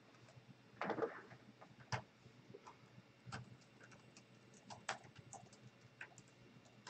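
Faint, irregularly spaced clicks and taps, the strongest about a second in, with others roughly every half second to second after.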